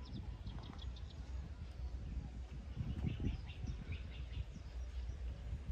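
Small birds chirping in quick rapid series, over a low, gusting rumble of wind on the microphone.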